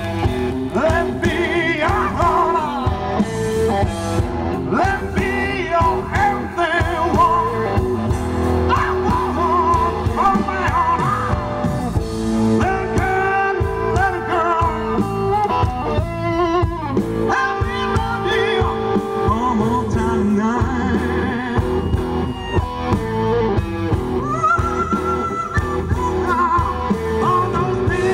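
Live blues band playing: a man singing over electric guitar, bass guitar and drums.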